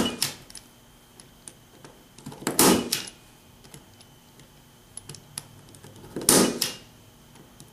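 Impact punchdown tool snapping as it seats wires into the slots of a 110-style Cat5e keystone jack and cuts off the wire ends. Three loud snaps a few seconds apart, near the start, about two and a half seconds in and about six seconds in, with lighter clicks between.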